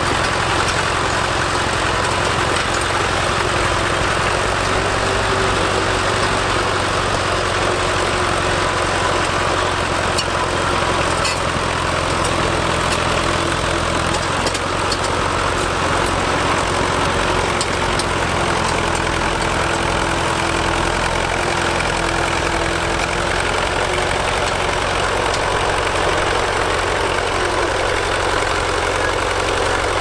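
Engine of a Fordson County crawler bulldozer running at a steady, even speed as the machine pushes soil with its blade.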